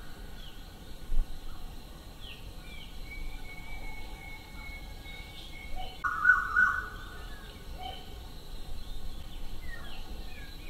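Birds chirping in woodland: short downward chirps and one thin whistled note held for a few seconds. About six seconds in, a short, loud animal call with several pitched tones cuts in.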